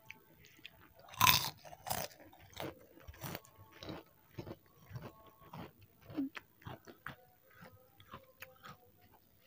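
Close-miked eating of fried instant noodles: loud crunchy bites about a second in, then a steady run of chewing and mouth noises.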